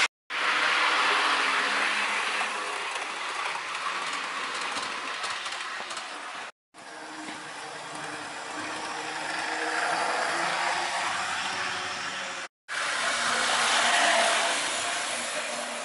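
OO gauge model trains running fast on the track: a rushing rattle of wheels on rail with a faint motor hum, swelling and fading as trains pass. The sound drops out abruptly twice, for a moment each time.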